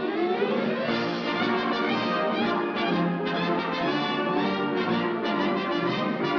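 Orchestral cartoon score led by brass, opening with an upward sweep in pitch over the first second and then carrying on steadily.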